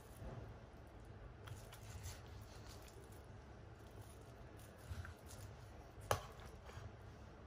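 Faint sounds of a deba knife cutting through the flesh that still joins a black sea bream's head to its body: soft slicing and scraping, with one sharp knock near the end.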